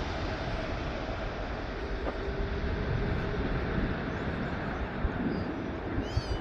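Airbus A380 jet airliner landing: the steady, deep rumble of its four jet engines and airflow, slowly easing off.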